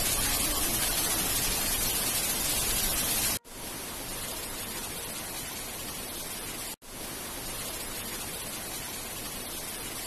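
Steady rush of a waterfall's falling water, a dense hiss with no pitch. The level drops and the sound cuts out for an instant about three and a half seconds in, and cuts out again near seven seconds.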